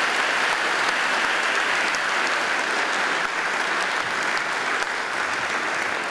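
Audience applauding steadily, a dense patter of many hands clapping, tailing off slightly near the end.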